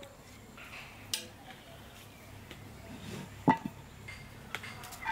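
Metal spoon scooping cooked rice in a large metal pot, with a sharp clink against the pot about a second in and a louder one about three and a half seconds in, plus a few lighter taps near the end.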